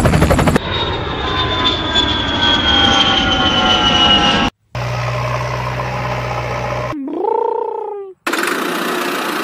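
Vehicle sound effects cut together: first an aircraft passing with a slowly falling whine, then a steady low engine hum, a short wavering tone that rises and falls, and a noisy engine sound. Each one ends abruptly.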